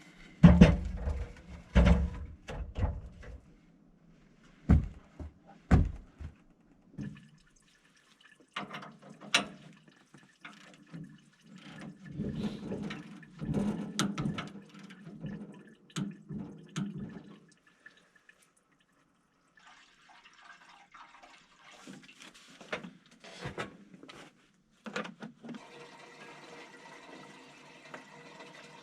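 Liquid, a mix of antifreeze and water, being poured into the sawmill's blade-lubrication tank. A few sharp clunks and knocks come first, then pouring in broken stretches, and steady pouring toward the end.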